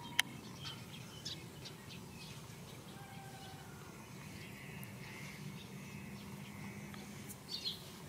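Faint outdoor ambience: distant birds chirping now and then over a low steady hum, with a sharp click just after the start and a louder chirp near the end.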